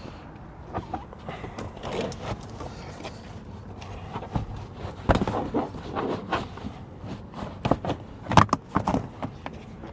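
A stiff rubber floor mat with a plastic core being worked into a car's front footwell. It scrapes and rustles against the carpet and trim in irregular stretches, with several sharper knocks, the loudest about halfway and again near the end.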